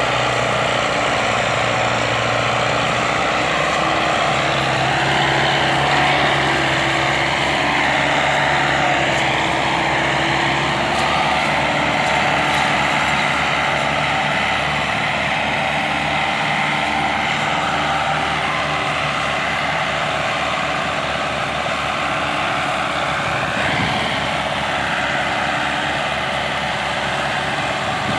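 Two diesel tractor engines, a Massey Ferguson 375 and a Belarus 510 hitched ahead of it, running steadily under heavy load as they pull a loaded sugarcane trolley.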